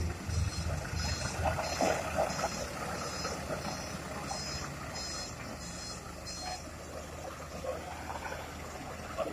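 Heavy-equipment backup alarm beeping, roughly two beeps a second, over a steady diesel engine rumble; the beeping stops about six and a half seconds in.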